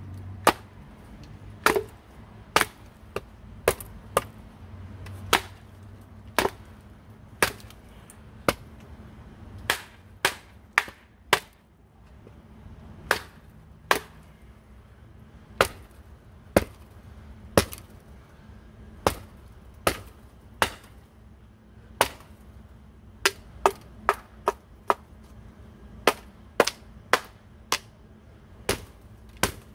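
Wooden baton hammering the spine of a cheap Mossy Oak tool-set blade to drive it down through a split of hardwood (batoning). It makes a long run of sharp wooden knocks, a little over one a second and unevenly spaced.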